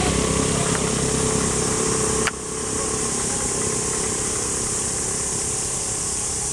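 Steady high-pitched insect drone of a tropical forest, over a low engine-like hum. The hum cuts off abruptly with a click a little over two seconds in.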